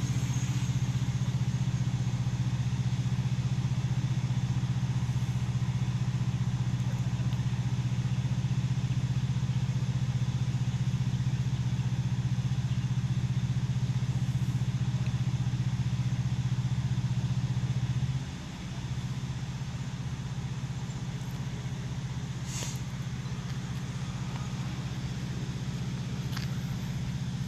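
Steady low hum of an idling engine, dropping slightly in level about two-thirds of the way through.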